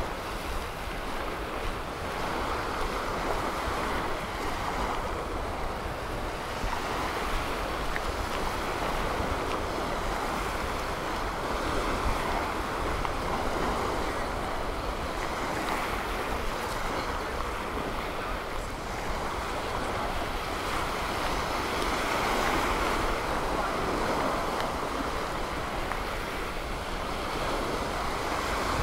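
Gulf of Mexico surf washing onto a sand beach, rising and falling every few seconds, with wind rumbling on the microphone.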